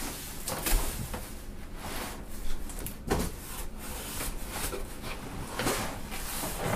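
Cardboard packaging scraping and rubbing in irregular strokes, with sharper knocks about a second in and about three seconds in, as a tightly packed shipping box is worked at by hand.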